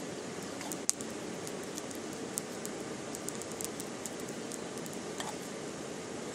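Small twig campfire crackling, with scattered sharp pops over a steady hiss; the loudest pop comes about a second in.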